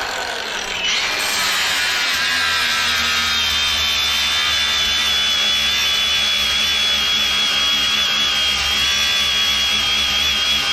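Angle grinder with a flap disc grinding a Diamond Mowers disc mulcher tooth to sharpen it: a steady high whine over the grinding noise. The level dips at the start and the motor winds back up about a second in.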